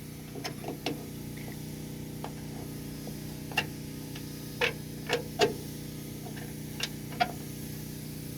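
Short, sharp plastic clicks and taps, about ten of them at irregular intervals, as a new interior door handle and its clips are worked and slid into place in a 1986 Nissan D21's door, over a steady low hum.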